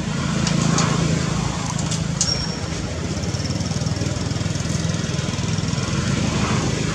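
A small engine running steadily, a low even drone. A faint high, thin tone joins about two seconds in.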